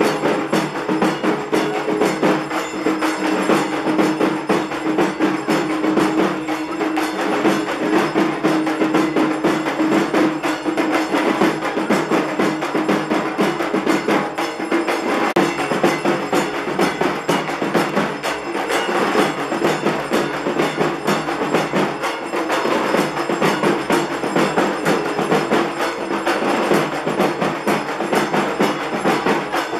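Dhak drums beaten fast with sticks in a dense, steady, driving rhythm, with a high metallic ringing over the drumming.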